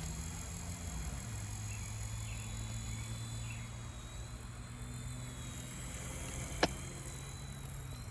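Small electric RC helicopter (DEERC DE51) in flight: a steady rotor hum with a thin high motor whine, the hum dropping a little in pitch about a second in. A sharp click comes near the end.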